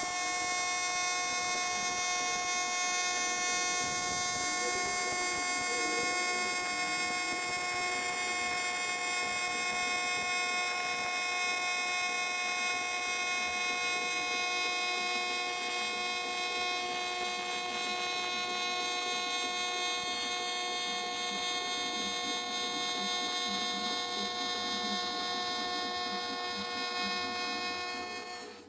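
AC TIG welding arc buzzing steadily while a bead is laid along an aluminum radiator tank seam; the buzz cuts out near the end as the arc is stopped.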